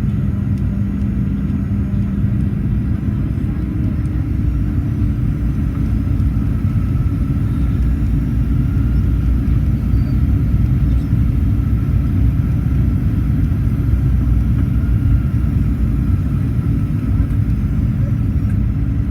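Steady cabin noise inside a Boeing 737-800 in flight: a deep rumble of engines and airflow. A low hum shifts to a slightly higher one about three and a half seconds in.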